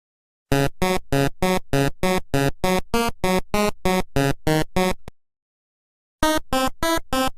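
Electronic synthesizer music: one pitched chord repeated in short, even stabs, about three a second. It breaks off about five seconds in and starts again about a second later.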